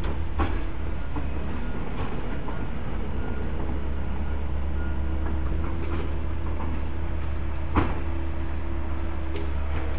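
Steady low rumble and hiss of a steam locomotive, a former C&O 2-6-6-2 Mallet, standing under steam, with a faint steady hum coming and going and a few sharp clicks, the loudest about eight seconds in.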